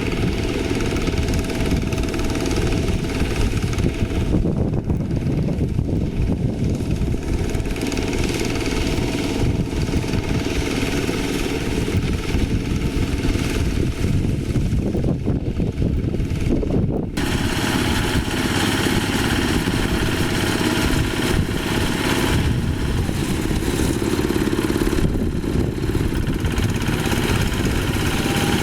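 Diesel engine of a Quick H-140R light rice harvester running steadily while it works. About two-thirds of the way through, the sound abruptly turns brighter and harsher.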